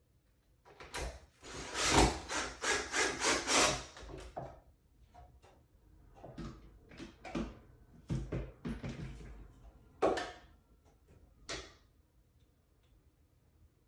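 Cordless drill driving a screw into a wooden shelf board, grinding in as a rapid series of pulses for about three seconds. This is followed by scattered scrapes and a couple of knocks as the boards and tools are handled.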